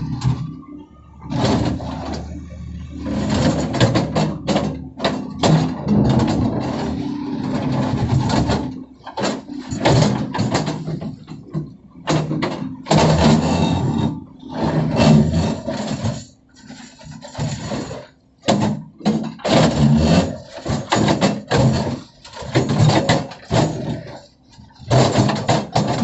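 Tracked excavator's diesel engine running under load, with irregular clanks and scrapes as the bucket digs into wet, rocky soil.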